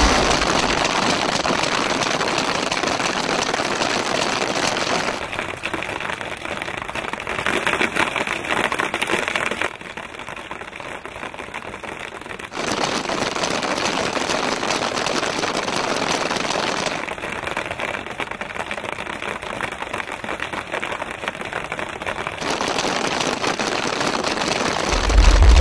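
Many paintball guns firing rapidly at once: a dense, continuous rattle of pops and paintball hits. The rattle shifts abruptly every few seconds and drops quieter for about three seconds around ten seconds in.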